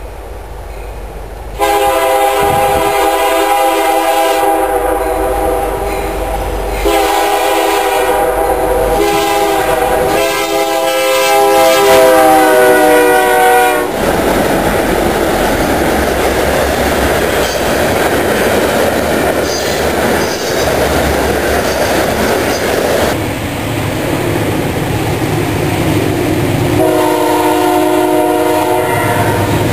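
Freight locomotive blowing its multi-note air horn in two long blasts, the chord sliding lower as the locomotive passes. This is followed by the steady rumble and clatter of hopper cars rolling by. Near the end a second train's horn sounds briefly over the passing of a double-stack container train.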